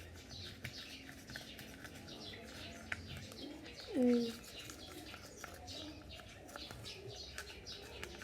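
Faint bird chirping throughout, with one louder short call falling in pitch about four seconds in.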